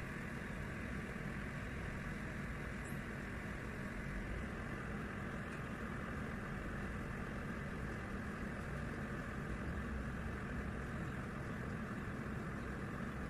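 Electric kettle heating water toward the boil: a steady low rumble with a hiss.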